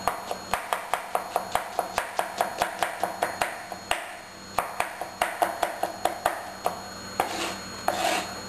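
Sharp kitchen knife finely chopping vegetables on a cutting board: quick, even strokes about five a second, with a short break near the middle, then a few slower, softer strokes near the end.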